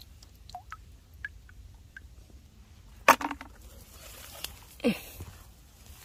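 A hand plunging into shallow muddy rice-paddy water to grab crabs: two splashes, a sharp one about three seconds in and a second, falling in pitch, near five seconds. A few faint short chirps come before them.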